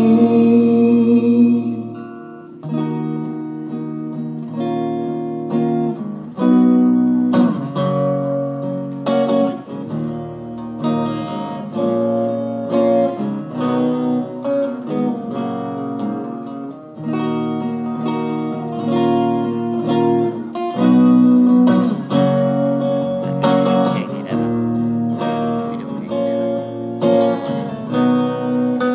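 Two acoustic guitars playing live, picking and strumming chords through an instrumental passage. A held sung note fades out about two seconds in.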